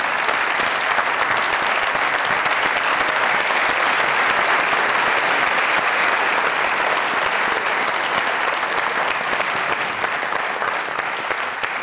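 Studio audience applauding steadily, a dense clapping that eases off slightly near the end.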